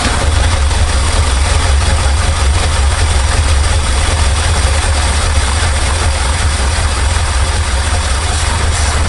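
Chevy C60 truck's carbureted engine running steadily at idle on its freshly rebuilt carburetor: a loud, even low rumble.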